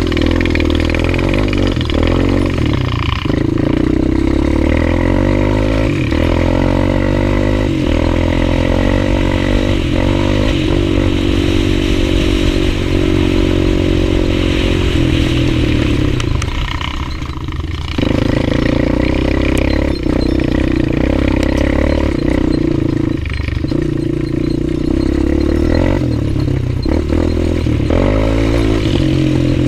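Honda 250EX quad's single-cylinder four-stroke engine under riding load, its revs rising and falling repeatedly as the throttle opens and the gears change. About halfway through the engine note drops off for a couple of seconds, then comes back on the gas.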